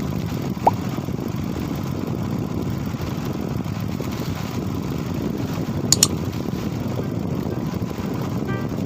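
Small fishing boat's engine running steadily while trolling, with a sharp double click about six seconds in.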